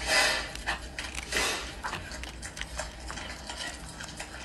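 Pomeranian dog eating bits of food off a glass tabletop. There are two short noisy bursts, near the start and about a second and a half in, followed by scattered light clicks.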